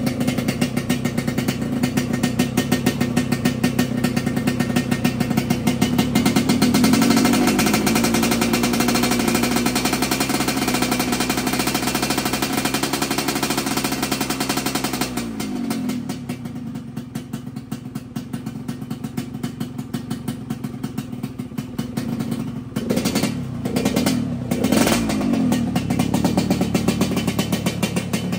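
Yamaha RX-King's two-stroke single-cylinder engine running at high revs that climb a little, then dropping back to idle about halfway through, with two quick throttle blips near the end. The engine has just been started after a major service and is being tuned.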